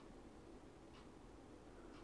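Near silence: faint room tone with a soft tick about once a second.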